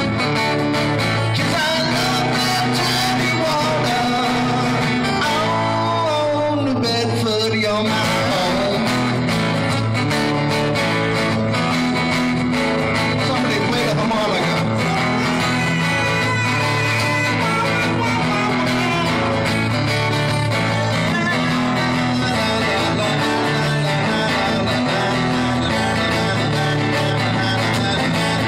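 Live rock and roll: a strummed acoustic-electric guitar through a PA over a steady bass line and beat, with a man singing.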